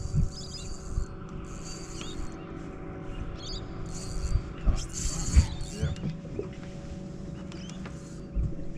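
Fishing reel's drag buzzing out in four short bursts as a hooked fish pulls line against the bent rod, stopping a little past halfway.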